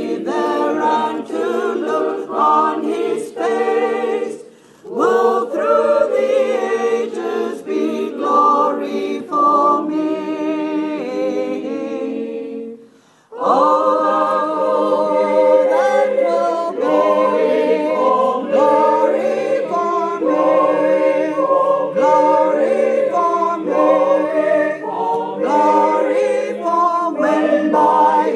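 Choir singing unaccompanied in several voice parts, in sustained phrases with short breaks and a brief pause about halfway through.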